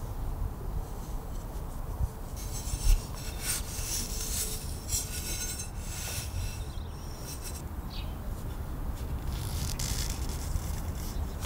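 Hands scraping and rubbing small metal garden tools: a run of quick scraping strokes a couple of seconds in, another near the middle, and more toward the end.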